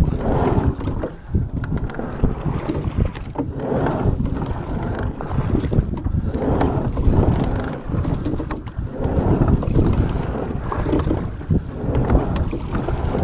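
Wind buffeting the microphone in a steady low rumble, with water rushing and splashing around a coastal rowing boat under way, swelling every two to three seconds.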